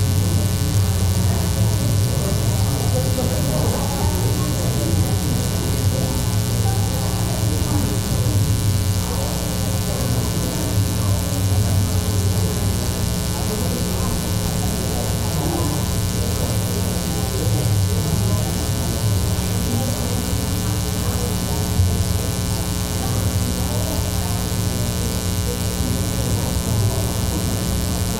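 Steady electrical mains hum with a stack of buzzing overtones, under faint, indistinct talking.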